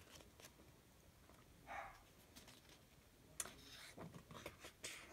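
A glossy photo book page being turned by hand: soft paper rustle and small clicks about three and a half seconds in, over near silence. A brief faint sound comes about two seconds in.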